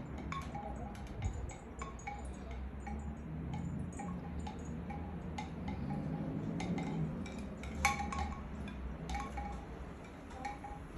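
Chimes tinkling irregularly, short ringing notes at a few repeated pitches, over a low steady rumble; one louder strike about eight seconds in.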